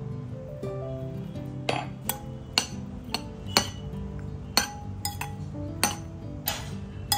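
A metal spoon clinking against the side of a bowl as penne pasta is stirred and tossed, with repeated sharp clinks one or two a second. Soft background music with guitar plays throughout.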